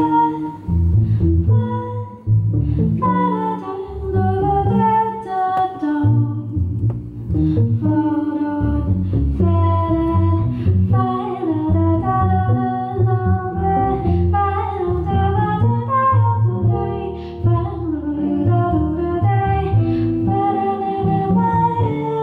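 Live trio music: a woman singing a melody, accompanied by electric guitar and plucked upright double bass.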